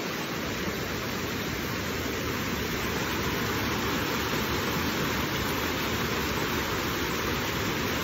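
A shallow stream rushing over boulders and small cascades: a steady, even rush of water.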